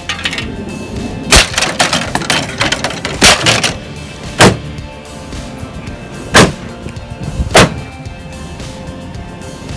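A microwave oven being struck hard, about six separate heavy blows spaced a second or more apart, with rattling and clattering of the broken casing between them.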